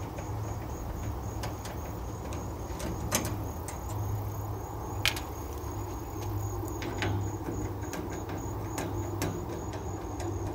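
Nut driver backing hex-head screws out of an air-conditioner condenser's top panel: scattered light metal clicks and ticks, over a steady low hum and insects chirping in a constant high trill.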